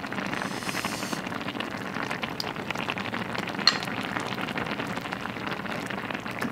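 Pot of spicy, soupy tteokbokki simmering on low heat: steady bubbling and fine popping, with one sharper click about three and a half seconds in.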